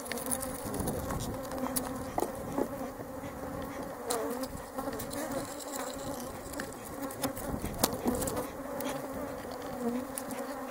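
Honeybees buzzing around an open hive: a steady, many-voiced hum whose pitch wavers as bees fly past close by. A few light clicks and knocks come from the wooden frames being handled.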